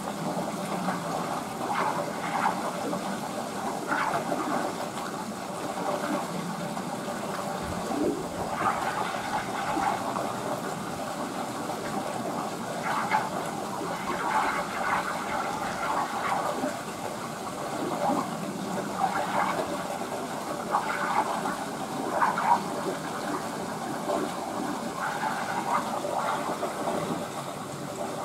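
Water running steadily through a pool, a continuous rushing and gurgling with small irregular splashy flickers.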